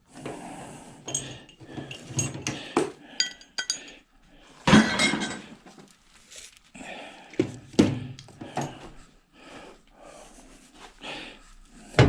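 Metal washing machine motor parts clinking and clanking as they are handled and tossed onto scrap metal, with a run of small knocks and rattles. The loudest clank rings, about five seconds in, and a second sharp one comes near eight seconds.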